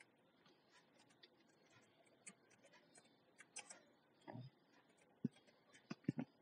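Faint, irregular computer keyboard key clicks as text is typed, with a few sharper taps near the end.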